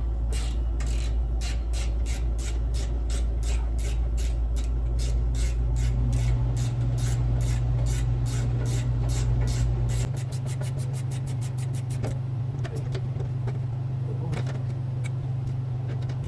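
Ratchet wrench clicking in steady, even strokes, about three or four a second, as the exhaust V-band clamps are loosened. The clicks come faster about ten seconds in, then turn sparse. A steady low hum runs underneath.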